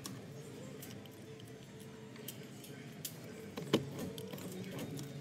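Small plastic clicks and clinks from handling the air-con knob's switch housing while the new T4.2 LED bulb is fitted, with one sharp click about three and a half seconds in, over a steady low hum.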